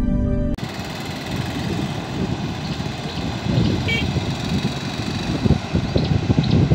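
Steady roar of water released through the opened spill gates of the Lunugamvehera reservoir dam and rushing down the river below. A snatch of intro music cuts off about half a second in.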